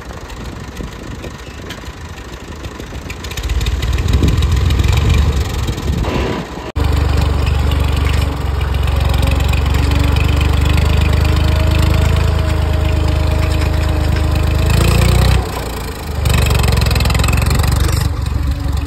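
A vehicle engine running steadily with a deep rumble and a faint held note above it. The sound grows louder about three and a half seconds in, changes abruptly near seven seconds, and drops away briefly around fifteen seconds before coming back.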